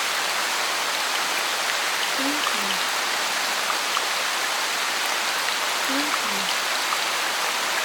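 Steady rain-like hiss of falling water. Over it, a low two-note animal call, the second note lower, repeats twice, every few seconds.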